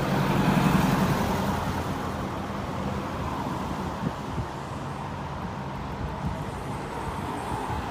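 Street traffic: a motor vehicle's engine passes close by, loudest about half a second in, then fades into a steady street-traffic background with a few faint knocks.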